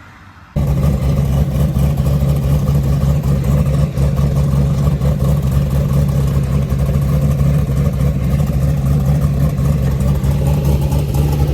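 Drag race car's engine running loudly and steadily at a constant speed, cutting in abruptly about half a second in.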